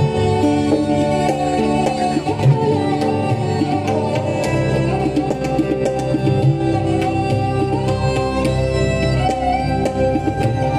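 Live Indian light-classical ensemble music: a melody on a violin played Indian-style, with guitar and tabla accompaniment.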